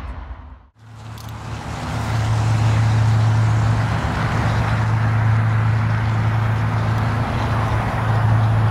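GE diesel locomotives of an approaching BNSF grain train: a steady low engine drone with a wash of rumbling noise. It swells in over the first two seconds after a short drop-out just under a second in.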